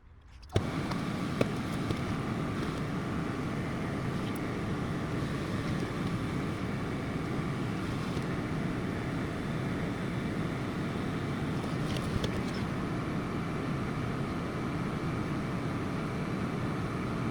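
A steady fan-like rushing noise that starts abruptly about half a second in, with a few faint clicks over it.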